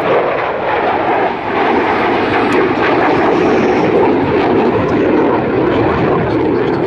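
Jet noise from an F-16 fighter's Pratt & Whitney F100 afterburning turbofan in a display flight: a loud, steady, dense rush with no clear pitch, dipping briefly about a second and a half in as the jet banks away.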